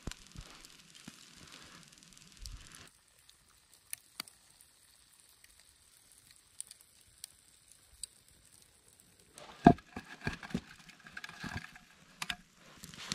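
Wood campfire crackling with scattered sharp pops under a grill grate of cooking fish and tortillas, with faint sizzling. About ten seconds in comes a loud knock, then rustling and more pops as a split log is handled beside the fire.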